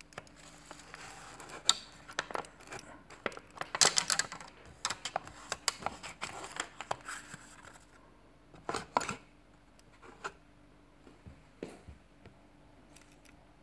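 Handling noise: a busy run of small clicks, taps and rustles for about seven seconds, then a few scattered clicks.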